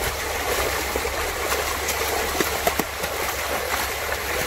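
Many large fish thrashing and splashing at the water's surface, crowded inside a drawn-in seine net, in a continuous churning rush. A few sharper slaps stand out about two and a half to three seconds in.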